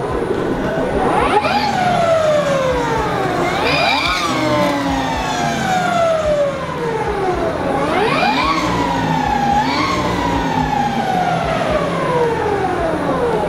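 Harley-Davidson LiveWire electric motorcycle's motor whining as the throttle is blipped four times. Each blip gives a quick rising whine, followed by a long falling whine as the motor spins down.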